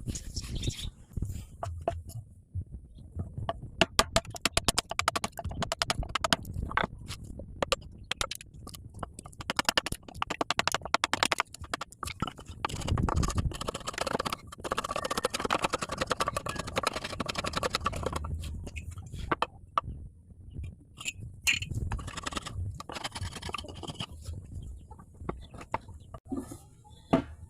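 Wood being worked by hand: a long series of sharp taps and clicks, coming in quick runs in places, with some scraping between them.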